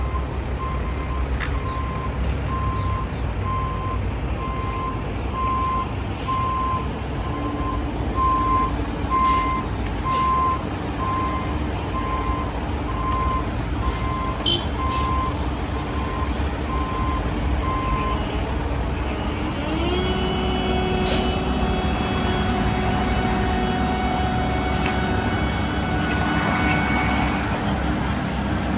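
Heavy diesel construction machinery running, with a reversing alarm beeping about once a second for the first eighteen seconds. Near twenty seconds in, an engine revs up and holds at a higher, steady speed.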